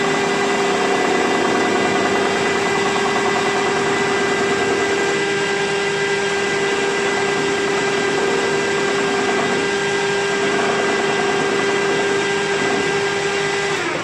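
Metal lathe running with a steady hum, its spindle turning an axle bearing blank while the tool rounds off the blank's end.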